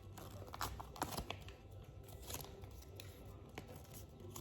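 Hands handling small plastic toy accessories and packaging: scattered light clicks and rustles, a few of them close together about a second in.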